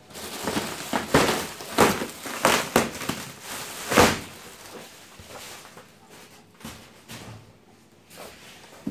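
Plastic sheeting wrapped over a foam packing insert crinkling and scraping against a cardboard box as it is lifted out. A run of loud rustles is loudest about four seconds in, then fainter handling noises follow.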